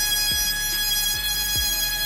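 Cordless spiral cutout tool running at high speed and cutting through the jet ski's plastic hull, a steady high whine with a few low knocks as the bit works along the cut line.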